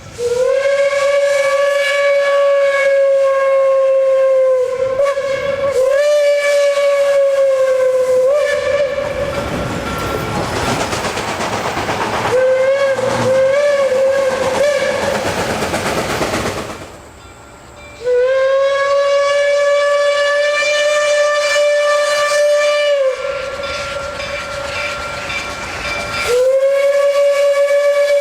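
Reading hooter whistle on Reading & Northern 2102, a Reading T-1 4-8-4 steam locomotive, blowing a deep single note in several long blasts and a couple of short ones. Loud hissing steam fills a stretch in the middle, and one blast is held softer for a few seconds near the end.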